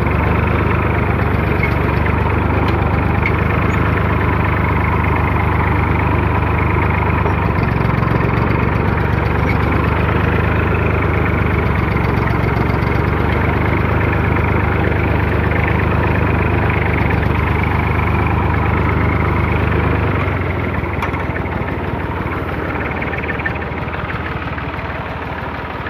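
Old tractor's engine running steadily while the tractor drives through a maize field. From about twenty seconds in, the low hum weakens and the sound gradually gets quieter.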